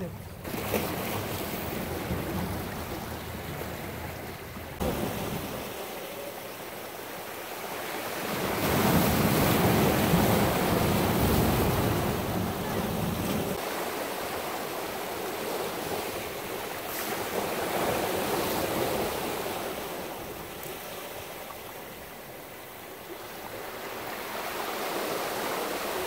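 Ocean surf washing over shoreline rocks, swelling and easing in waves, loudest about a third of the way in.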